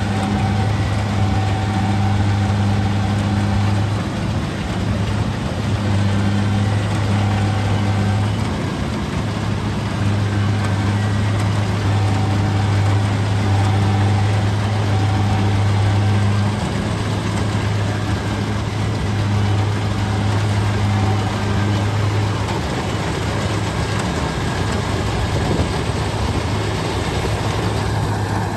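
Kubota DC-70G combine harvester's diesel engine running steadily as it works. A low hum in the drone fades and returns several times.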